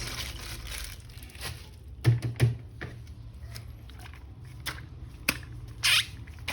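Toys and their plastic packaging being handled: scattered clicks and knocks, two firmer taps about two seconds in, and a short crinkling rustle near the end.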